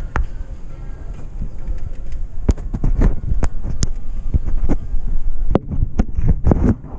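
Low rumble of wind on the microphone with irregular thumps and sharp clicks, most frequent about three to five seconds in.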